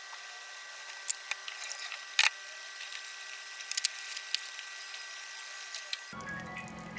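Scattered light clicks and knocks of kitchen utensils, with one sharper knock about two seconds in, over a steady faint hiss. Near the end the background changes abruptly to a fuller, lower sound.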